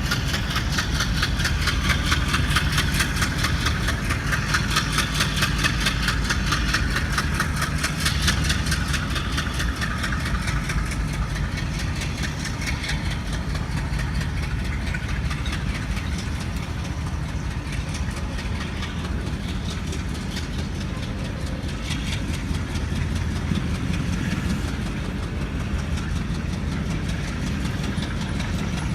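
Twin WDG3A diesel locomotives, their 16-cylinder ALCO 251 engines chugging with a steady low throb and a fast, even beat. The sound eases a little after about ten seconds, losing some of its upper hiss.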